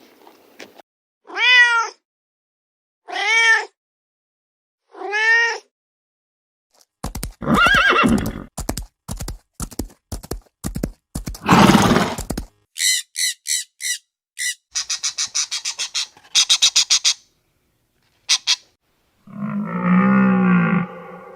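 A domestic cat meows three times, each call rising and then falling in pitch, about two seconds apart. These are followed by a string of other animal calls: loud rasping, pulsed cries, then short high chirps and buzzing calls. Near the end a low, drawn-out call begins.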